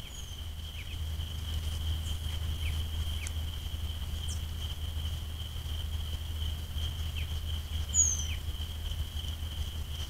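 Forest ambience: an insect's steady high-pitched call, with a few short, falling high chirps from birds, the loudest about eight seconds in, over a low rumble.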